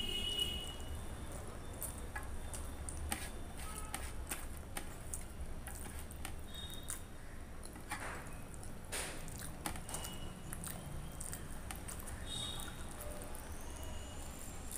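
Hand mashing boiled egg into rice and curry on a stainless steel plate: wet squishing, with fingers scraping and tapping the metal in scattered short clicks.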